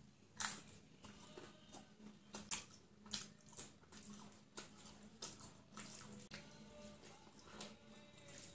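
Close-up eating sounds: crisp papad crunching and wet chewing in the mouth, in irregular sharp crunches, the loudest about half a second in.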